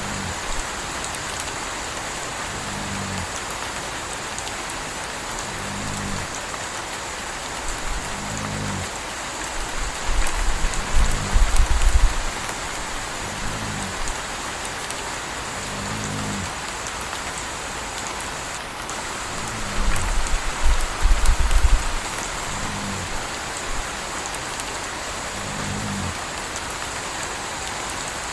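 Steady rain, with a puppy snoring: a low-pitched snore about every three seconds, some ten in all. Two spells of deep low rumble come about ten and twenty seconds in.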